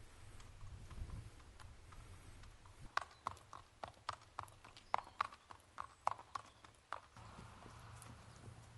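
A Thoroughbred stallion's hooves walking on a paved path: an even clip-clop of about three to four hoofbeats a second, starting about three seconds in and stopping about a second before the end.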